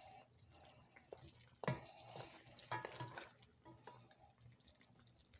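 Serving ladle spooning curry and gravy from a pot onto a china plate: a few faint knocks and clinks of the ladle on pot and plate, the loudest about a second and a half in, with soft wet sounds of the gravy.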